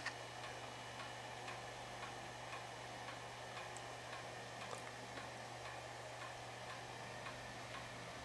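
Laser stage projector running: a steady low hum with a faint, regular ticking about twice a second.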